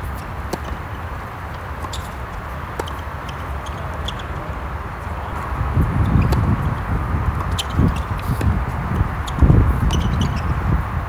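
Tennis balls struck by racquets and bouncing on a hard court during doubles play, heard as sharp pops spaced a second or more apart. Under them runs a low rumbling noise, heaviest in the second half.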